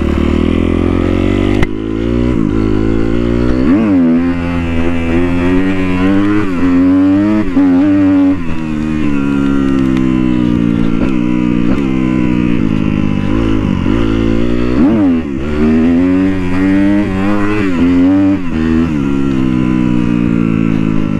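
Sportbike engine revving hard under acceleration, its pitch climbing and then dropping sharply several times as it shifts up through the gears, easing off for a few seconds in the middle.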